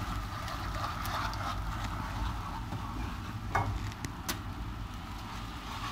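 Cold water going into hot butter-roasted cornmeal in a frying pan while a wooden spoon stirs, under a steady low hiss, with two short sharp clicks a little past the middle.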